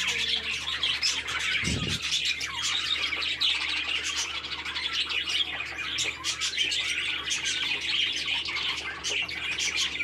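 A flock of budgerigars chattering continuously with many overlapping short chirps and squawks. There is a brief low thump about two seconds in.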